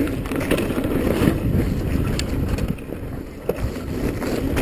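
Mountain bike riding down a snowy trail: tyres rumbling over the ground with scattered clicks and rattles from the bike, and wind buffeting the microphone. It eases off briefly a little past halfway.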